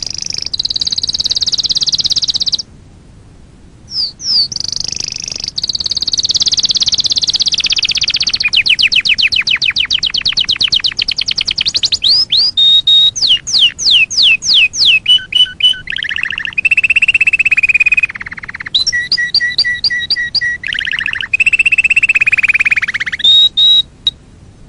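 A songbird singing a varied song in phrases with short pauses: quick sweeping notes, a long rapid trill, and runs of repeated whistled notes.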